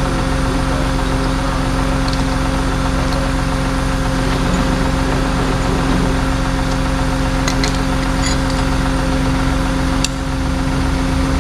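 A vehicle engine idling steadily, with a constant low hum. There is a sharp click about ten seconds in, where the sound drops slightly.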